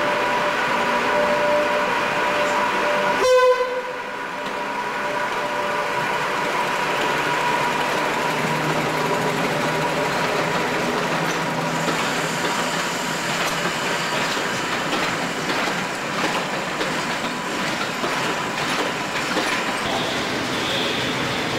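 Railway locomotives in a station: an electric locomotive moving slowly with a steady whine, a brief loud blast about three seconds in, then a heavier, rougher running sound as diesel traction passes.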